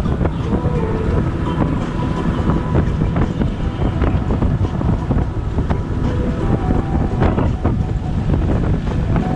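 Wind buffeting the microphone: a loud, steady rumble with a few scattered knocks.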